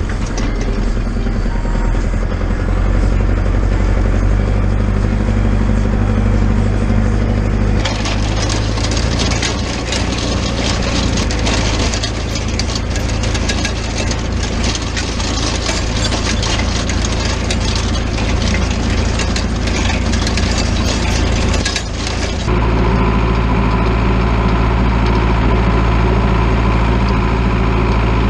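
International Harvester 845 XL's four-cylinder diesel engine running steadily under load while towing a meadow harrow. Through the middle stretch the harrow's metal frame and tines rattle and clatter over the ground on top of the engine.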